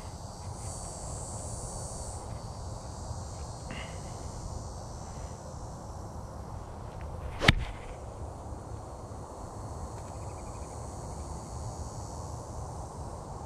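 A 3-iron striking a golf ball off the tee: one sharp, crisp hit about halfway through.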